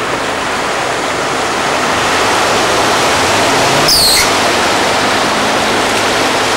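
Floodwater rushing and sloshing steadily as a van drives through it and a man wades, with a low engine hum underneath. A short, high, falling squeak about four seconds in.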